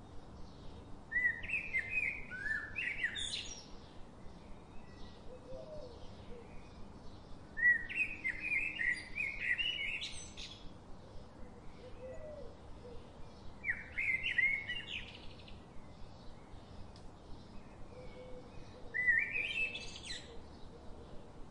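A songbird singing four short phrases of quick chirping notes a few seconds apart, over a faint steady ticking about twice a second.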